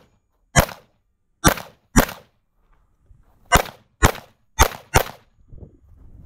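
Seven gunshots from a red-dot braced pistol in a Flux brace chassis, fired in quick strings: one shot, then a pair, then four about half a second apart.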